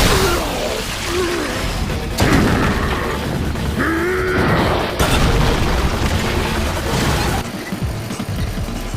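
Anime fight-scene soundtrack: heavy booms and crashing impacts over music, with sudden hard hits about two and five seconds in.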